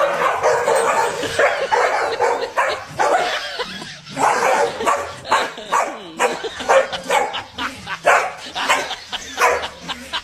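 A dog barking and yipping again and again in short, sharp calls.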